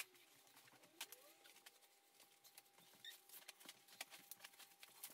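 Near silence: faint room tone with a steady faint hum and a scattering of soft ticks.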